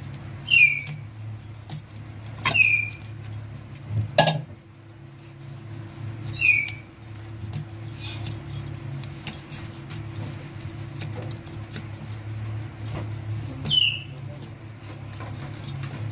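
Dough being kneaded by hand on a tray, with bangles clinking in small clicks and one thump about four seconds in, over a steady low hum. A high, falling animal chirp, louder than the kneading, sounds four times.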